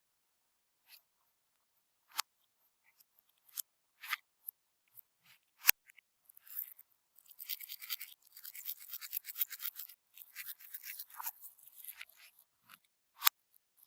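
Crunchy bead slime being squeezed and pressed by hand, giving a few sharp pops and clicks, then a long stretch of dense crackling in the middle, and one more sharp pop near the end.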